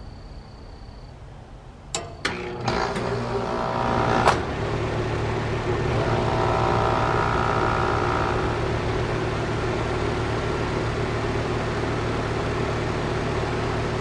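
A 2011 Carrier 2-ton heat pump outdoor unit starting up: several sharp bangs between about two and four seconds in, then the compressor and condenser fan settle into a steady running hum, with a brief higher whine about six to eight seconds in. The start-up did not sound good; the owner suspects a failing capacitor rather than a failing compressor.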